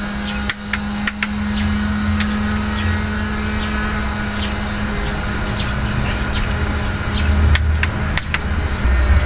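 A motor vehicle engine running with a steady hum, its low rumble growing louder near the end. A few sharp metallic clicks come about half a second and a second in, and again near the end.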